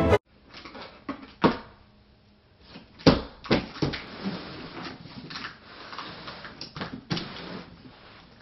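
Handling noise: several sharp knocks and clicks over intermittent rustling and scraping, with the loudest knock about three seconds in.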